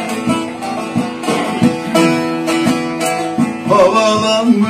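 Bağlama (saz), a long-necked Turkish lute, played solo in a quick run of plucked notes between sung verses. A man's singing voice comes back in near the end.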